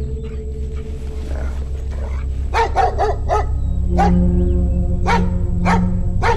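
A dog barking: a quick run of four barks about two and a half seconds in, then single barks roughly a second apart, over a low sustained drone of film score.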